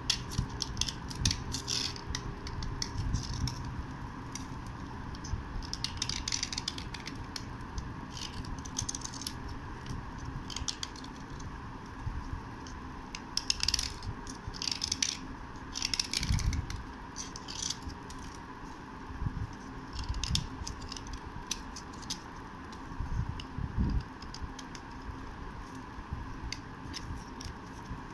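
A flat metal blade scraping a triangular slab of white slate, dry, in irregular short strokes that chip off flakes. The strokes come in louder bunches at a few points.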